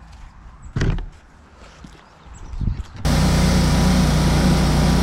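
A short thump about a second in, then a pressure washer cuts in abruptly about three seconds in and runs loud and steady, its motor humming under the hiss of the water spray.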